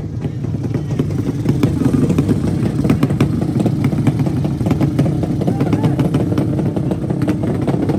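Drag-race motorcycle engines running loud, with a rapid crackle throughout.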